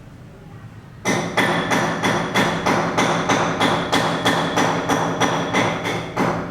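Rapid, even knocking that starts about a second in and runs at about four strikes a second, with a steady ringing tone beneath it.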